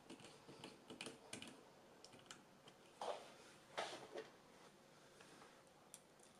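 Faint scattered clicks and ticks of a small screwdriver turning screws into a laptop's metal hinge bracket, with two slightly louder taps about three and four seconds in.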